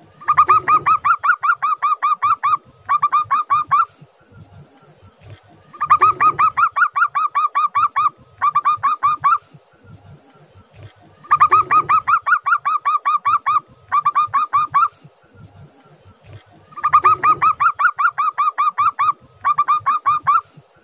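Zebra dove (perkutut) cooing: four bouts of rapid staccato coos, each a long fast run of notes followed by a shorter run after a brief break, repeating about every five and a half seconds.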